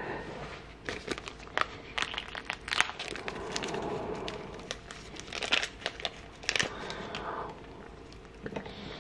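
Small plastic parts bag from a brake rebuild kit crinkling and rustling in the hands as it is opened to get at a new circlip, with many irregular sharp crackles.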